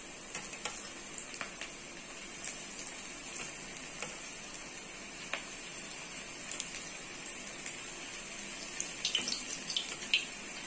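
Onion pakora batter deep-frying in hot oil in a kadhai: a steady sizzle with scattered crackles and pops, busier near the end as more batter goes in.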